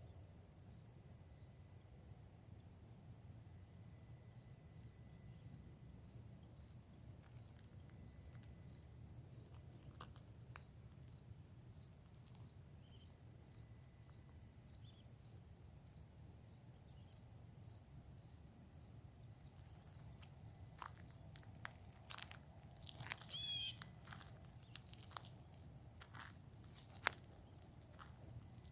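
A chorus of autumn grass insects such as crickets: a steady high-pitched trill over rapid, evenly repeating chirps, continuous and faint. From about two-thirds of the way through, a scattering of sharp clicks and taps joins in, one of them louder near the end.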